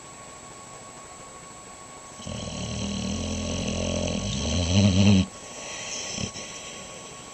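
A sleeping dog snoring: one long snore starts about two seconds in, grows louder over about three seconds and stops suddenly, followed by a softer breathy sound.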